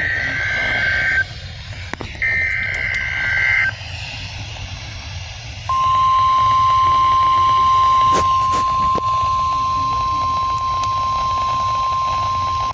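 NOAA Weather Radio test signal heard through a receiver over a steady hiss: two bursts of the SAME data header, a raspy two-pitch warble of about a second and a half each, then about two seconds after the second burst the steady single-pitch warning alarm tone begins and holds for about seven seconds.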